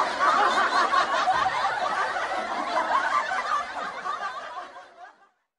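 Several people laughing together, a dense overlapping laugh that fades out and stops about five seconds in.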